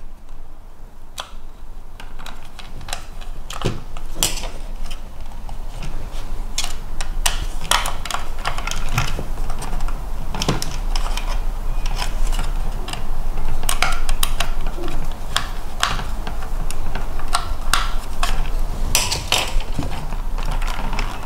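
Plastic parts of a 1/16-scale RC buggy being handled: irregular light clicks and rattles, several a second.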